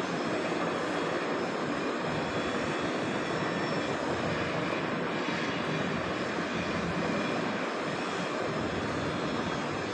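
Steady rushing background noise, even and unbroken, with no distinct strokes or knocks standing out.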